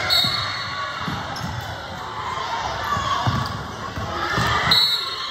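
Basketball bouncing on a gym floor: a run of irregular thuds, with crowd noise in the background.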